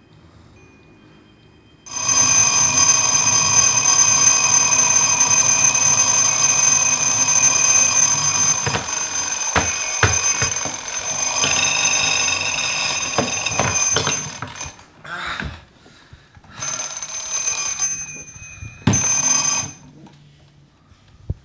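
Alarm clock ringing loudly. It starts suddenly about two seconds in, with a few knocks as a hand fumbles at the bedside table. It stops after about twelve seconds, then rings again in three short bursts before going quiet.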